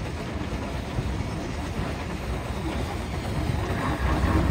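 Narrow-gauge steam locomotive and its train approaching: a steady rumble and clatter of wheels on the track, growing louder toward the end.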